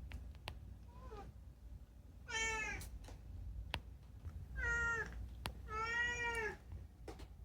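A domestic cat meowing: a short faint call about a second in, then three loud drawn-out meows, the last the longest. A few light clicks fall between the calls.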